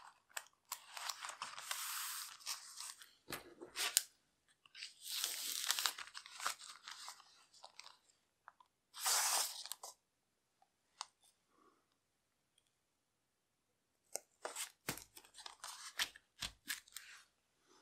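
Thin clear book-covering plastic film rustling and crinkling in several spells as a card and a plastic circle template are slid into the heat-sealed sleeve, followed near the end by a run of light clicks and taps as the filled sleeve is handled on the mat.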